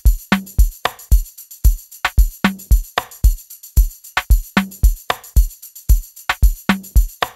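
Background music: a drum-machine beat with deep, regular kick drums over a constant high percussion layer, and a lower pitched drum hit about every two seconds.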